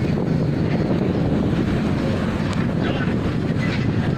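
Strong sandstorm wind buffeting the microphone: a loud, steady rush of wind noise, heaviest in the low end.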